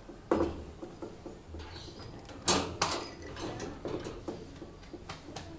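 Scattered clicks and knocks from an air rifle being handled and moved, the loudest a pair of sharp knocks about two and a half seconds in.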